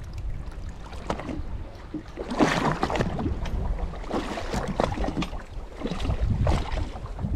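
Water rushing and splashing along the hull of a moving boat, over a steady low rumble, with wind buffeting the microphone; the splashing surges louder several times.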